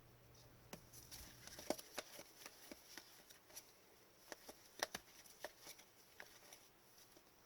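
Upper Deck hockey trading cards being handled by hand as a pack is sorted through: faint, irregular soft clicks and flicks of card stock.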